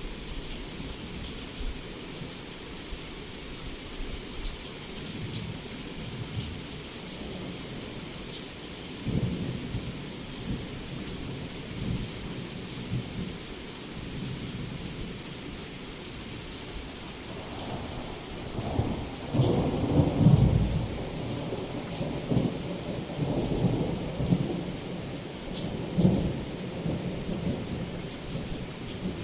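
Heavy rain pouring steadily, with thunder rumbling low underneath; the loudest roll of thunder swells up about two-thirds of the way through, and smaller rumbles follow.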